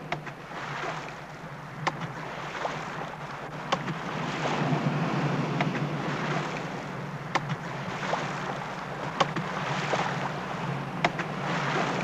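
Surf washing onto a sandy beach, rising and falling in swells every few seconds, over a low steady hum, with a few scattered sharp clicks.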